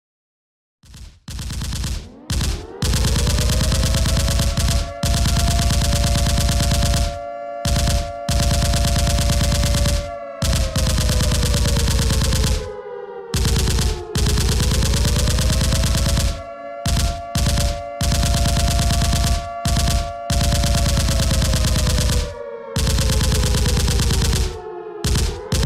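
Air-raid siren wailing in slow cycles: it winds up about a second in, holds a steady pitch for several seconds, slowly falls, then winds up again, twice. Under it, a dense din of machine-gun fire that breaks off in short gaps.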